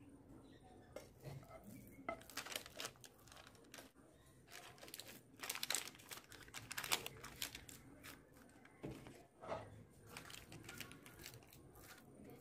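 Sheet of baking paper crinkling in soft, irregular crackles as it is held and pressed while sticky carrot burfi mixture is spread and patted flat on it with a wooden spatula and a spoon.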